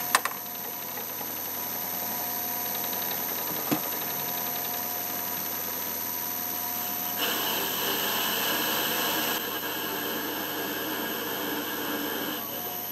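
Boxford metal lathe running steadily with a constant motor and gear whine while turning down a steel bolt. A short click comes at the start and another about four seconds in. From about seven seconds in, the cutter biting into the steel adds a harsher hiss, which stops shortly before the end.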